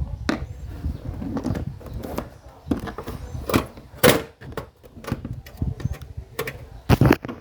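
Irregular clicks, knocks and light scraping of hand tools and hard plastic parts being handled on a workbench, about a dozen sharp strikes spread unevenly, with a low rumble beneath.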